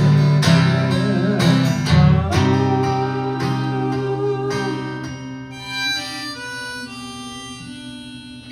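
Acoustic guitar and harmonica playing the closing instrumental bars of a slow folk song. A few strummed chords come first, then held harmonica notes over the ringing guitar, and the music fades steadily toward the end.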